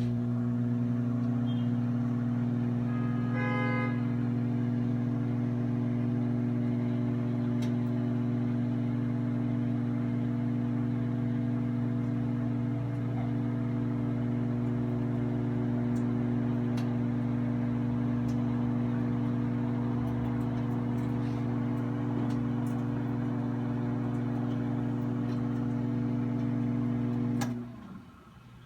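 Toshiba ML-EC42P countertop microwave oven running with a steady hum, which cuts off suddenly near the end.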